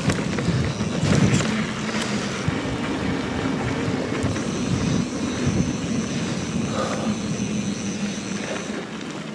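Steady wind noise rushing over the microphone, mixed with tyre and trail noise from a mountain bike rolling along a wet trail.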